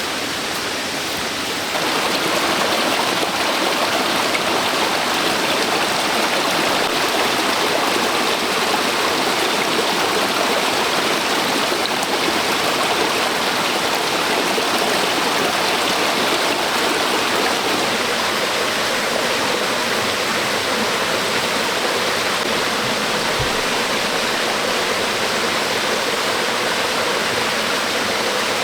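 Running water rushing steadily, stepping up in level about two seconds in.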